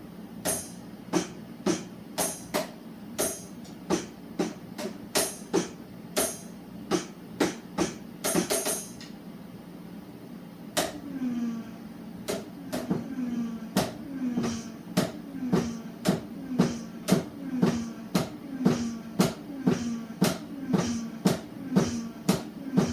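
A drum beat: sharp hits about two a second with bright, cymbal-like strokes, a short break about halfway through, then a new pattern in which each beat carries a low hit that drops slightly in pitch.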